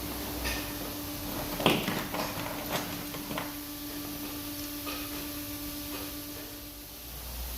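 A few light knocks and clicks of metal parts and tools being handled, the loudest about two seconds in, over a steady hum that stops near the end.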